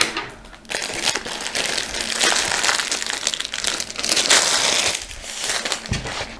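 A diamond painting canvas with a plastic film over its double-sided adhesive, crinkling and rustling as it is handled and unrolled. The film is badly creased.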